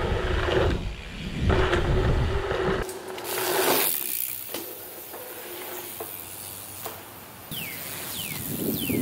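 Mountain bike's rear freehub buzzing while coasting over a dirt trail, with tyre and wind rumble from a helmet-mounted camera. The buzz breaks off for under a second about a second in. After about three seconds the rumble cuts out to a brief hiss and quieter ticking, and near the end three short falling chirps sound.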